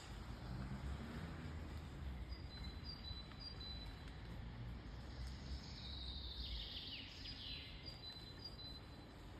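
Birds chirping: short high notes in runs of about two a second, with a busier flurry of song midway, over a low background rumble that fades out a little past halfway.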